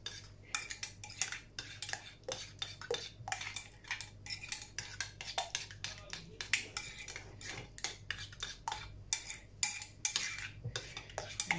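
A metal teaspoon stirring tomato passata in a glass measuring jug, clicking and scraping against the glass in quick, irregular taps, several a second.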